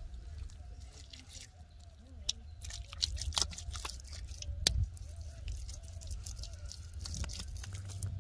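Hands pressing and smoothing wet cement, squelching and slapping, with a couple of sharper slaps about three and a half and five seconds in. A steady low rumble runs underneath.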